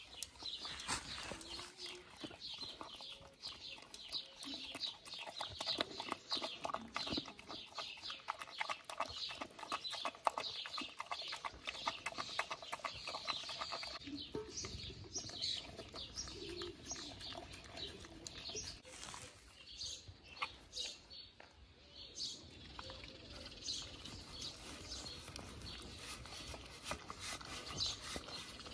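Husky eating beef strips and eggs from a stainless steel bowl: a dense run of quick chewing and licking clicks, several a second, easing briefly past the middle.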